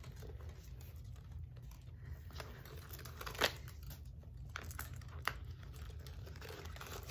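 Packing material crinkling and rustling as it is pulled out of a handbag by hand, with a couple of sharper crinkles, the loudest about three and a half seconds in.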